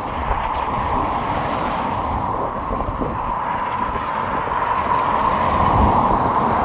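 Road traffic on a wet road: a steady hiss of tyres on wet tarmac that slowly grows louder towards the end.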